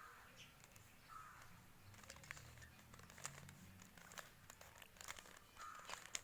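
Plastic Rubik's cube being turned by hand through a move sequence: a run of small, quick clicks and rattles as the layers rotate.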